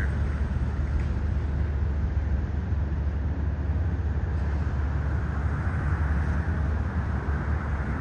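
Steady low rumble with a hiss above it: continuous outdoor background noise with no distinct events.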